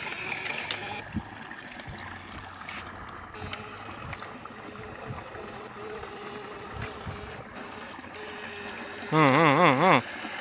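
Water in a shallow irrigation ditch stirring and lapping as electrofishing poles are worked through it, with a few soft knocks. About nine seconds in, a loud warbling tone with a fast wavering pitch lasts just under a second.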